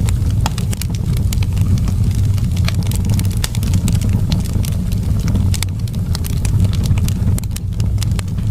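Wood fire in a fireplace crackling and popping, with many sharp snaps over a steady low rumble of flames.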